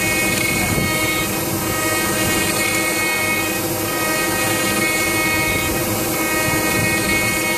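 CNC router spindle running steadily with a whine of several held tones, its end mill cutting plectrum outlines from a sheet of dark timber.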